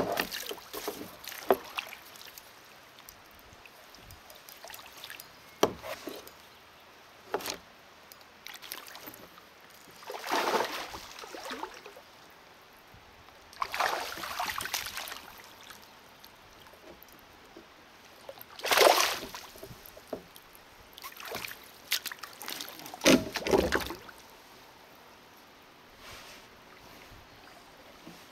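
Kayak paddle dipping into the water in intermittent strokes, each a short splash, with a couple of sharp knocks in between.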